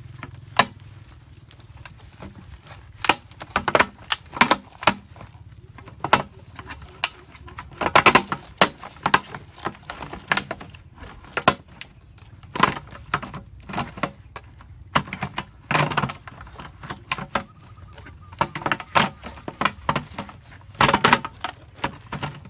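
Irregular knocks, taps and rattles of plastic as PVC pipe fittings, a corrugated plastic hose and a plastic container are handled and pushed together. They come in clusters with short pauses between them.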